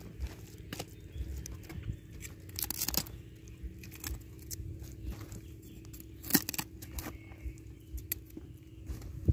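Scattered light clicks and rustles of cauliflower florets being handled in a wicker basket, over a faint steady low hum.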